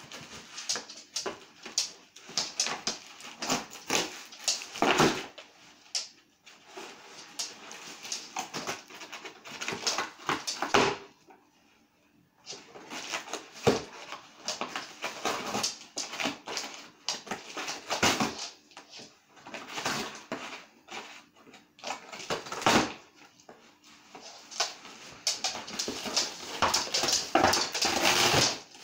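A small dog ripping and scratching at a cardboard box to get at food inside, with irregular rapid cardboard scraping and tearing noises. There is a brief pause about twelve seconds in.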